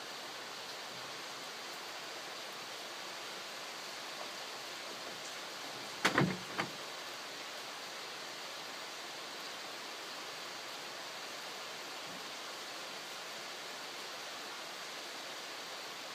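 Steady summer rain falling in a continuous even hiss, with a quick cluster of three or four sharp knocks about six seconds in.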